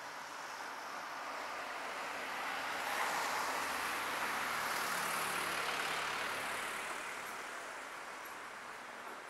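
A car driving past on the street: tyre and engine noise swelling up, loudest a few seconds in, then fading away.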